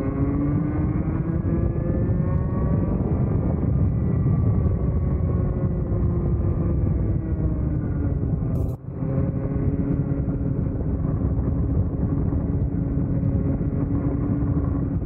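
Vortex Mini ROK 60cc two-stroke kart engine running hard on track, its pitch rising over the first few seconds and then holding fairly steady, over heavy low rumble. The sound dips briefly about nine seconds in.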